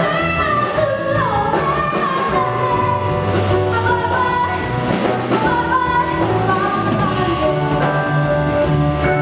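A woman singing a jazz vocal line into a microphone, backed by a live quartet of piano, double bass and drum kit with cymbals.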